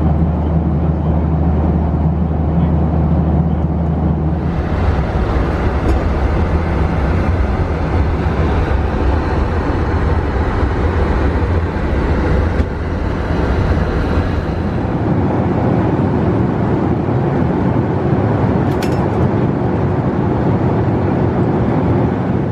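Jet airliner cabin noise: a steady engine hum that gives way, about four seconds in, to a louder rushing sound of engines and airflow, which eases off again later.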